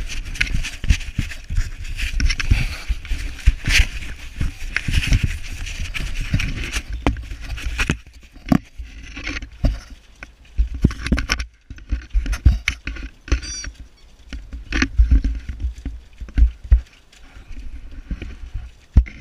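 English setter puppies licking and nosing a peanut-buttered GoPro: wet licks, scrapes and irregular knocks of tongues and muzzles against the camera housing, busiest in the first half.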